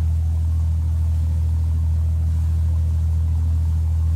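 Motorboat engine running with a steady low drone, recorded on board the boat.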